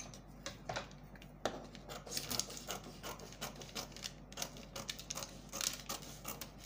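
Scissors cutting through a paper sleeve pattern: an irregular run of crisp snips, with paper rustling between them.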